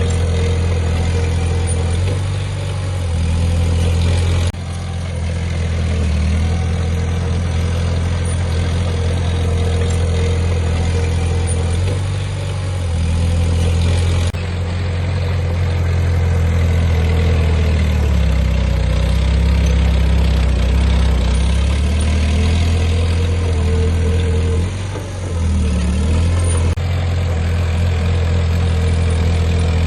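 Diesel engine of heavy earthmoving equipment running with a strong, low, steady hum. Its pitch dips and rises now and then as it works. The sound changes abruptly a few times.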